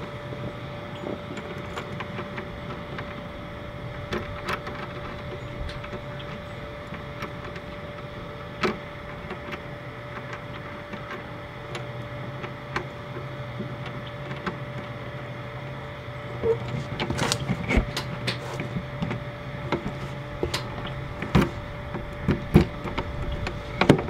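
Small clicks and taps of an RV baggage-compartment door latch being tightened by hand, then, from about two-thirds of the way in, a quick run of louder clicks and knocks as the door is pushed and the latch tried against the jamb. A steady low hum sits underneath.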